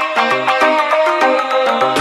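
Background music with a quick melody of short, repeated notes.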